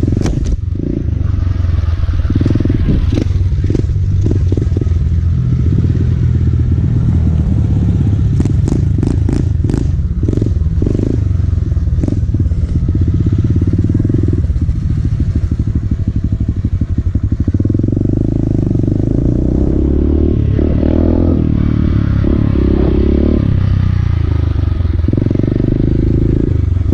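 Motorcycle engine running while being ridden, heard through a helmet-mounted camera microphone. The engine note shifts several times as the revs rise and fall, and there is a brief run of clicks about a third of the way through.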